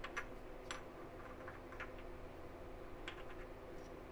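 Faint, irregular light metallic clicks as the crankshaft timing gear of a Chevy 350 small-block V8 is handled against the crankshaft snout. The gear will not slip on while cold.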